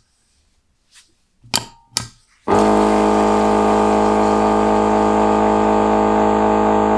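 A 12 V liquid-filling machine's pump switches on about two and a half seconds in, after a few light clicks. It then runs with a loud, steady hum, pumping liquid into a 250 ml bottle on a timed fill.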